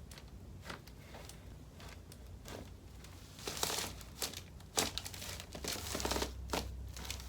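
Crinkling and rustling from a body shifting on a chiropractic treatment table, louder from about halfway through, with one sharp snap in the middle of it.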